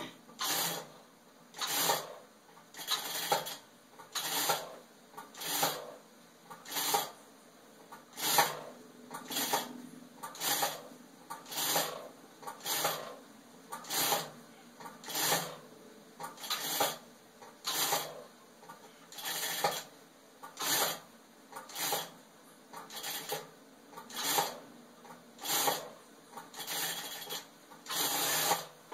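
Industrial single-needle lockstitch sewing machine stitching denim in short bursts of about half a second, roughly one burst a second, stopping between bursts while the fabric is turned to follow a curved edge.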